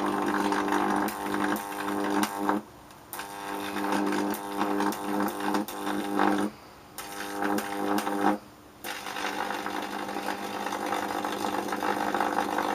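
High-voltage electric arc burning through a neon test screwdriver: a loud buzz with crackling, cutting out and re-striking three times.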